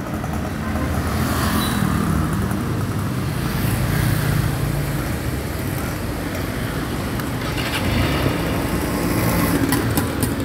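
City road traffic: engines of cars, auto-rickshaws and motorbikes passing on the street, over a steady low engine hum, with a vehicle going past louder about eight seconds in.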